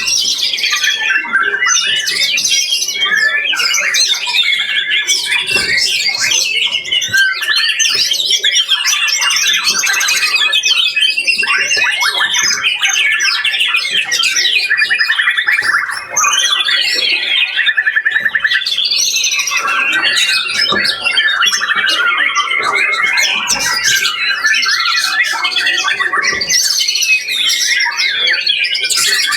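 Caged songbirds singing at a bird-song contest: loud, unbroken warbling with rapid trills, several birds overlapping.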